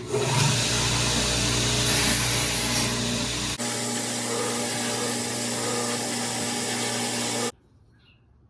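An electric power tool grinding or sanding the forged piece: a loud, steady hiss over a motor hum. The hum changes abruptly about three and a half seconds in, and the sound cuts off suddenly near the end.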